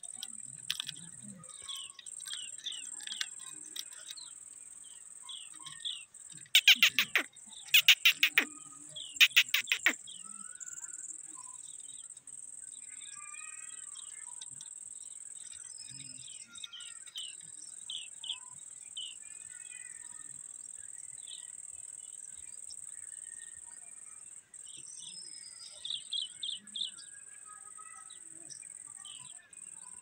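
Alexandrine parakeets calling: three loud screeching calls about seven to ten seconds in and a quieter run of calls near the end, with short high chirps in between. A steady high-pitched insect drone runs underneath.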